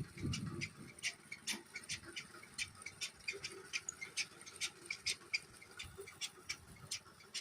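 A quick, irregular series of light clicks or taps, about three or four a second.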